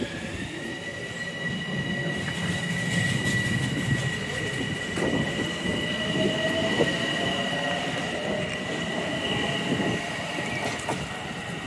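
Metro-North M7A electric multiple unit pulling out of the station, its traction motors giving a steady two-note high-pitched whine after climbing in pitch as it starts, with a fainter lower tone rising slowly as it gathers speed, over the rumble of the passing cars.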